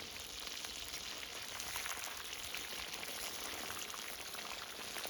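Lamb and oxtail frying in a deep layer of hot olive oil in a cast-iron kazan: a steady sizzle with dense, fine crackling.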